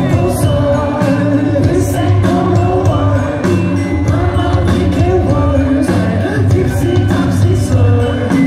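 Live indie-pop band playing a song with a singer, keyboards, bass and drums, heard from among the audience in a theater.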